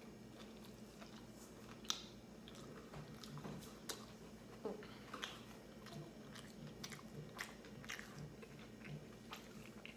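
A person biting into and chewing a slice of pizza topped with onions, green and yellow peppers and spinach: quiet, irregular chewing clicks, a few each second.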